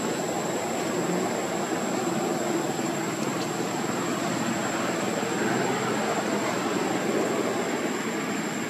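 Steady outdoor background noise: a continuous even rushing with a thin, steady high-pitched whine over it, and no distinct events.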